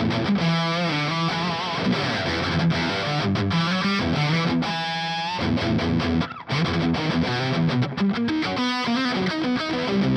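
Distorted electric guitar riffing: a Music Man Majesty in standard tuning through a modified 50-watt Marshall JCM 900 SL-X head, boosted by a Fortin Blade, into a Mesa 4x12 cabinet. Quick riffs are broken by held notes with vibrato about a second in and again around five seconds, and there is a brief stop about six seconds in.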